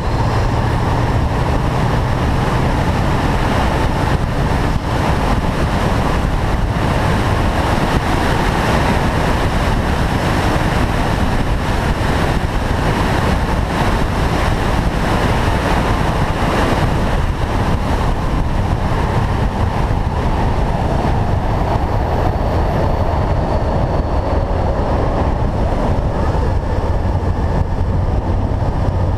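Car driving at a steady speed: a constant mix of engine, tyre and wind noise, with no revving up or down.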